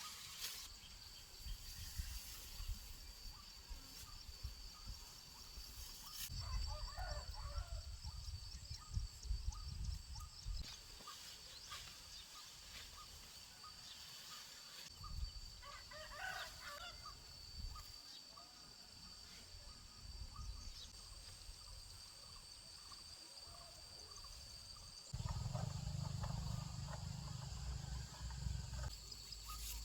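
Rural outdoor ambience: a steady high-pitched whine, a couple of short chirping calls about seven and sixteen seconds in, and low rumbling that gets louder near the end.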